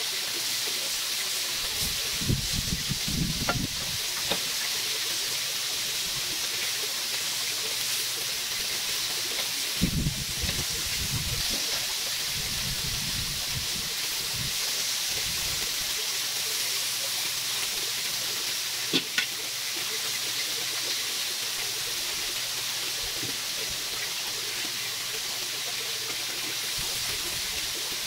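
Marinated chicken fillets sizzling steadily on an electric grill plate, with occasional knocks and clicks of metal tongs as the pieces are turned.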